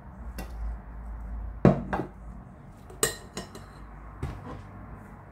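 Red plastic salad servers knocking and clinking against a glass salad bowl and a plate as salad is served: about six separate sharp knocks, the loudest a little under two seconds in.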